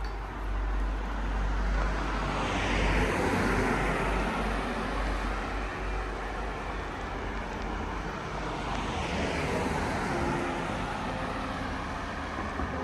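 Cars passing on a wet road: tyre hiss swells and fades about two seconds in, then a second, lighter pass near the end, over a steady low rumble.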